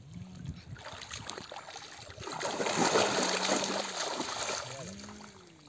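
Shallow muddy pond water churned and splashed by wading legs and hands, the splashing swelling to its loudest about halfway through as a man thrashes his hands into the water to grab a fish.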